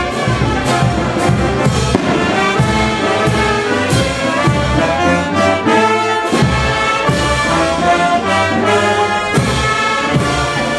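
Brass band playing a tune: sousaphones, trumpets and trombones together over a steady beat.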